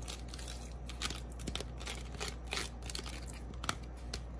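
Canned whole kernel corn sliding off a plastic strainer and falling into a saucepan of tomato broth and okra, pushed along by hand: irregular small clicks, scrapes and patters.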